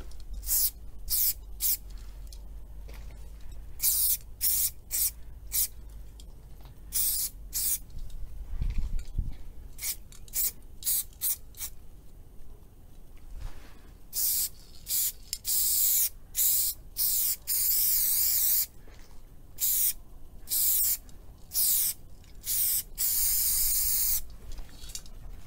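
Aerosol spray paint can hissing in many short bursts, with a few longer sprays of about a second each in the second half.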